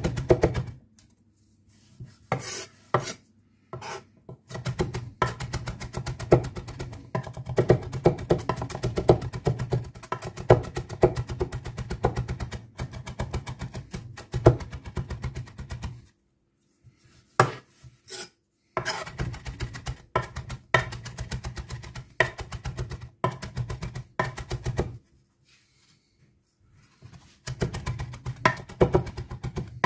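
Zwilling chef's knife chopping fresh greens on a cutting board: fast runs of many crisp knocks a second, each with a dull thud of the blade meeting the board. The chopping stops briefly a couple of times, about halfway through and again near the end, before picking up again.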